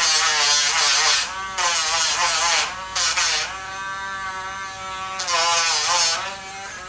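Dremel rotary tool grinding a dog's toenails: a steady electric motor whine, with a loud hissing grind each time the bit is pressed to the nail, about four passes. The whine fades out near the end.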